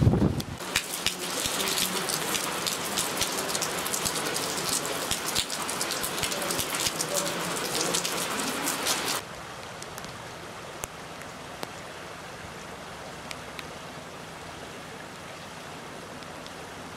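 Rain pattering on hard wet surfaces, a dense even patter of small drop ticks. About nine seconds in it cuts off suddenly to a much quieter steady hiss with only the odd drop.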